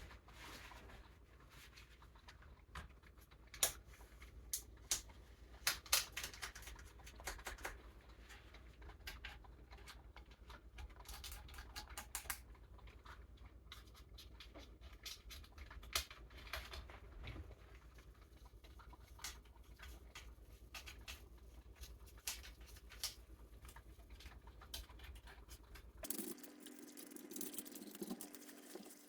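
Irregular scratching, scraping and small clicking knocks as a chainsaw is cleaned by hand, clogged sawdust being picked and scraped out of it. About 26 seconds in the background changes abruptly to a steady low hum.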